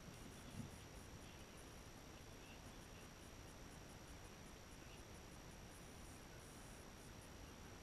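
Near silence: room tone with a steady hiss and a faint high whine, and one soft low thump about half a second in.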